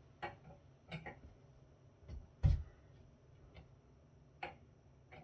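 Scattered light clicks and knocks from a metal power distribution unit and a screwdriver being handled to get at its cover screws, with one heavier knock about two and a half seconds in.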